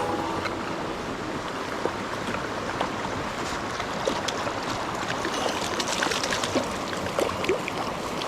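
Mountain stream flowing: an even rush of water, with scattered faint ticks over it.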